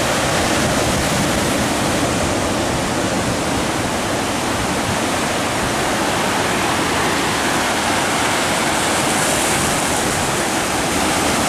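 Sea surf breaking and washing over a boulder shoreline: a steady rush of water noise.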